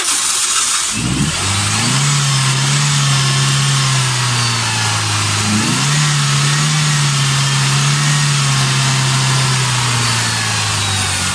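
Toyota Corolla Altis engine starting: it catches about a second in and settles into a steady idle, with a brief rev about five and a half seconds in. It is the start of a car that had been cranking without starting, with a zero engine-speed reading blamed on the crankshaft sensor.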